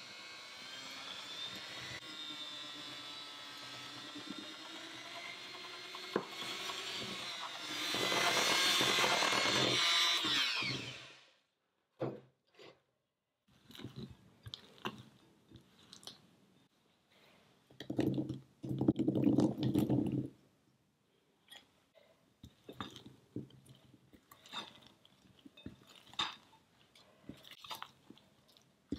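Electric hand mixer beating thick muffin batter in a glass bowl, running steadily, louder for its last few seconds, then switching off about eleven seconds in. After that, a spatula scrapes and folds the thick batter with soft squelches and clicks against the glass, with a louder two-second stretch around the middle.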